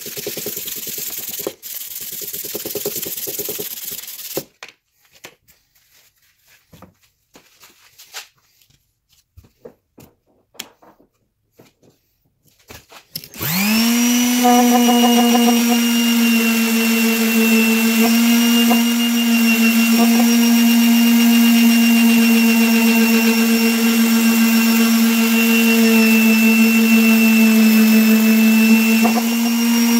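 Sandpaper block rubbed back and forth by hand on a steel axe head for about four seconds, then a few light clicks and knocks. About 13 seconds in, a DeWalt electric palm sander starts up, reaches full speed within a second and runs with a steady hum while sanding the axe head.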